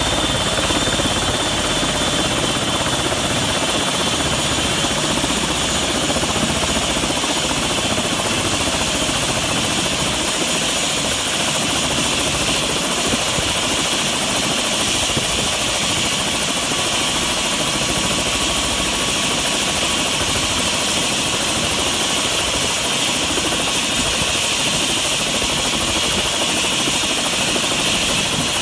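Light helicopter running on the ground with its main rotor turning: a steady high turbine whine over the rotor's rushing wash, unchanging throughout.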